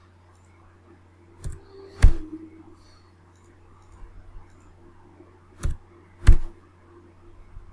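Four sharp computer-input clicks from a mouse and keyboard, in two pairs: one pair about a second and a half in, the other about six seconds in, the second click of each pair louder. A steady faint electrical hum runs under them.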